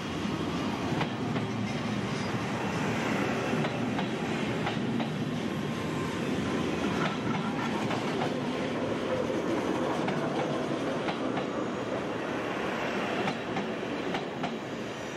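Netherlands Railways passenger train rolling past along the platform: a steady rumble of wheels on rail, with irregular clicks as the wheels cross rail joints.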